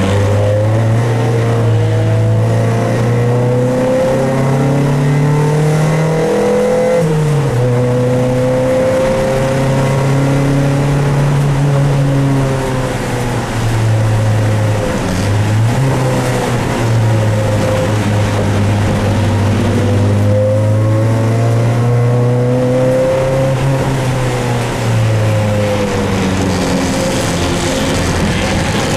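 Dodge Neon race car's four-cylinder engine from inside the cabin, pulling hard through the gears. Its pitch climbs, drops at each upshift, then falls away as the car slows for a corner near the end.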